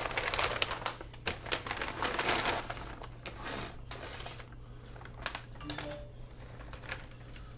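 Large plastic zip-lock bag crinkling and rustling as it is handled and opened. The rustling is dense for the first few seconds, then thins to a few lighter rustles and clicks.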